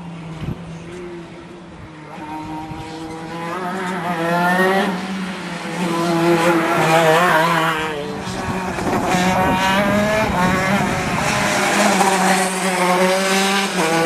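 Several racing kart engines running hard on track, their pitch climbing repeatedly as they accelerate and overlapping as the pack goes by, over a steady low engine hum.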